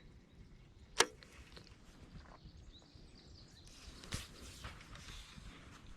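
A single sharp knock about a second in, then a stretch of soft rustling with a few small clicks.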